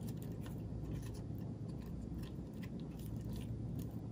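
Faint, irregular light crackles and clicks of fingers handling crisp lettuce, herbs and mango slices on a wet rice-paper wrapper, over a steady low hum.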